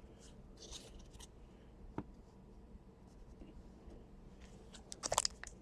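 Trading cards being slid and rubbed against each other by hand, faint, with a single sharp tap about two seconds in and a louder flurry of card rustling near the end.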